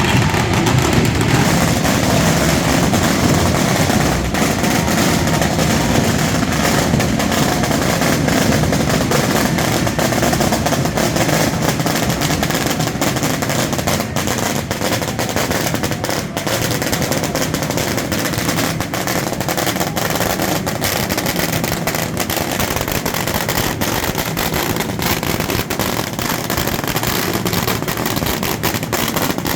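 Firecrackers going off in a rapid, near-continuous crackle of sharp bangs, like a long string of bangers.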